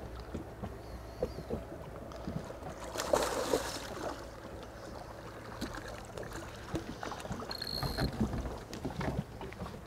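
Water lapping and slapping against an inflatable boat's hull, with wind on the microphone and small scattered ticks; a louder rush of water noise about three seconds in.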